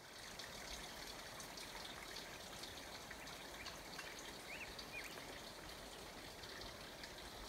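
Faint, steady trickle of a small stream in a quiet forest, with a few short, high bird chirps between about three and five seconds in.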